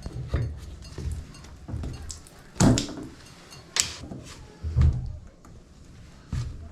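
Irregular knocks and clunks of hand tools working on a shower valve, about seven over several seconds, the loudest in the middle.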